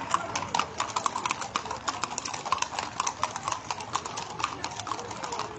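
Many horses walking on a stone-paved street, their hooves clip-clopping in a dense, uneven clatter of overlapping hoofbeats.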